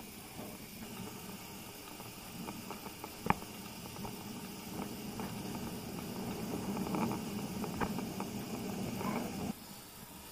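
Riding noise picked up by a camera on a moving e-bike: wind and tyre noise on asphalt that slowly grows louder, with a sharp click about three seconds in and a few lighter ticks. It drops off abruptly near the end.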